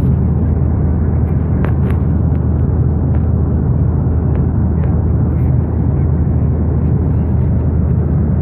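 Airliner cabin noise: a steady, loud rumble and rush of the jet in flight on its descent, heard through a phone's microphone, with a few faint clicks from the phone being handled.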